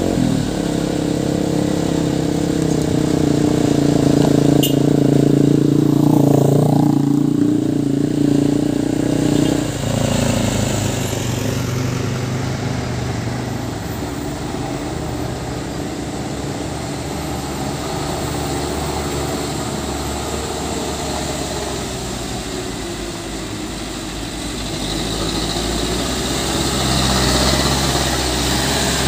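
Hino Dutro light trucks' diesel engines, loaded with sand, driving past on a gravel road. In the first stretch one truck runs loud and goes by about six seconds in, its pitch dropping as it passes; after a cut, engine and tyre noise is quieter, then grows louder near the end as the next loaded truck comes close.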